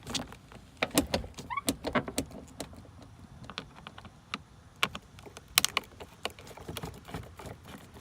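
Screwdriver backing a small screw out of a car's plastic dashboard speaker grill: irregular small clicks and scrapes of metal on plastic, with a short rising squeak about one and a half seconds in.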